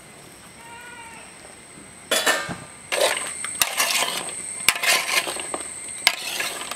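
Raw chopped vegetables being tossed and mixed by hand in a large aluminium pot: crunchy rustling with sharp clinks against the metal, starting about two seconds in.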